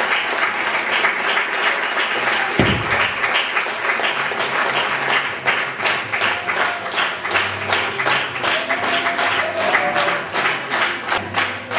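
Audience applauding, dense clapping that settles into steadier, evenly paced clapping about halfway through.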